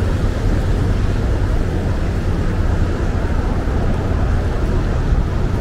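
City street traffic: a steady, deep rumble of passing vehicles with an even wash of noise over it.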